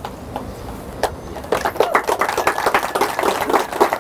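Guests applauding, starting about one and a half seconds in and quickly growing louder.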